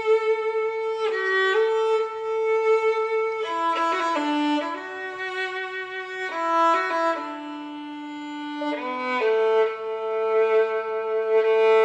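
Solo violin playing a slow melody of long held notes that step from one pitch to the next, with now and then two notes sounding together.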